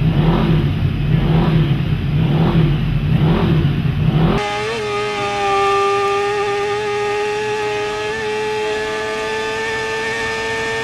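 Engine noise throbbing about twice a second, then, after an abrupt cut about four seconds in, a racing motorcycle's engine heard onboard at high, nearly steady revs, its note shifting slightly once or twice.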